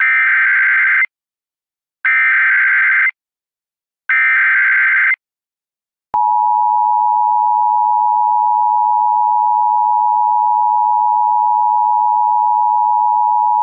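Emergency Alert System tones: the SAME digital header, three one-second bursts of warbling data tones a second apart, then the steady two-tone EAS attention signal starting about six seconds in. Together they announce that an emergency alert message follows.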